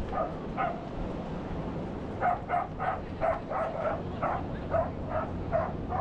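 A dog barking: two barks near the start, then a quick run of about a dozen barks, about three a second, over the steady noise of ocean surf.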